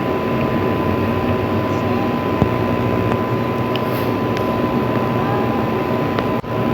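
Steady machine-like background drone: a constant low hum under an even noise, with a thin steady high tone running through it.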